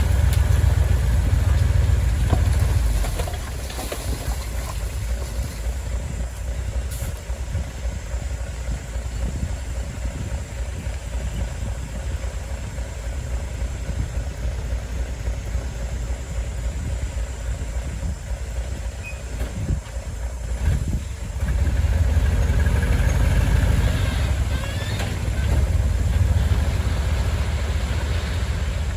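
Heavy diesel engines of construction machinery running, loud for the first few seconds, easing to a lower level, then growing loud again about three quarters of the way through.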